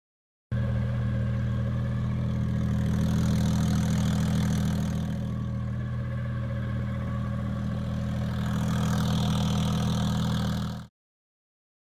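Turbocharged Ford Barra inline-six boat engine running steadily at idle, swelling slightly in loudness now and then.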